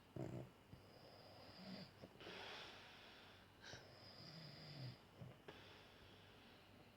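A sleeping person snoring faintly, with a short snort near the start. Twice, a thin high-pitched whistle lasts about a second and is followed by a longer breathy rush of air.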